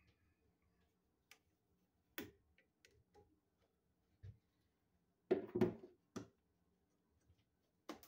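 Scattered light clicks and taps of hand tools and wire on a wall light switch's screw terminals as the wires are fitted, with a short cluster of louder clicks about five to six seconds in.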